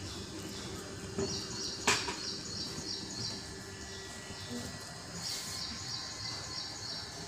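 A bird chirping over and over in short high notes, with a steady outdoor background. A sharp click about two seconds in is the loudest sound.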